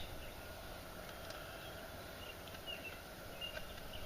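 Quiet outdoor background with a few faint, short bird chirps in the second half.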